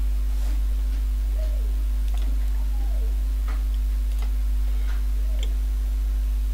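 Steady low electrical hum from the recording setup, with about five faint, sharp computer-mouse clicks spread through it.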